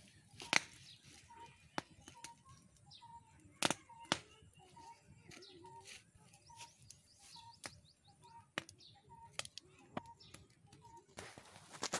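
Wood fire crackling with scattered sharp pops. A bird repeats a short single note about twice a second, with faint higher chirps.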